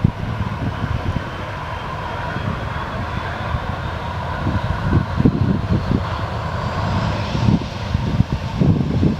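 Airliner engines whining, one tone slowly rising in pitch, over a low rumble. Wind buffets the microphone with irregular low thumps.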